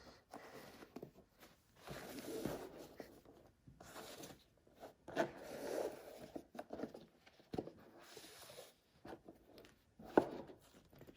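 Rustling and scraping of gift packaging being handled: a ribboned gift box being unwrapped, in irregular bursts, with one sharper sound about ten seconds in.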